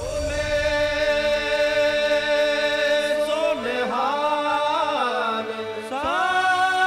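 Background music: a voice holding a long chanted note over a sustained drone, then sliding up and down through a melodic line about halfway through and rising again near the end.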